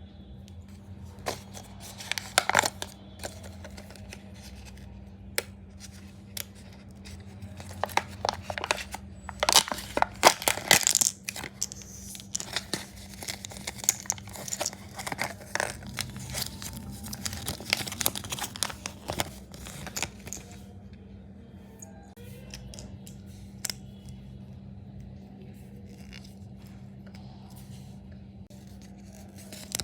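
Foil wrapper of a Kinder Joy egg being torn open and crinkled, with scattered crackles and clicks that are busiest in the middle and die down after about twenty seconds. A steady low hum sits underneath.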